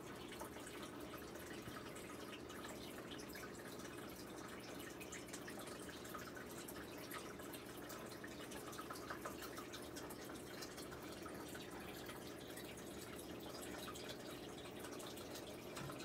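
Faint, steady trickling and dripping of water in a turtle tank, many small drops ticking into the water, over a steady low hum.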